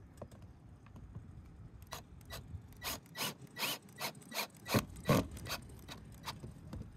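Ryobi cordless drill driving a self-tapping screw through a cable entry housing into the van's metal roof, in a run of short clicking bursts about three a second. The bursts start about two seconds in and stop a little before the end.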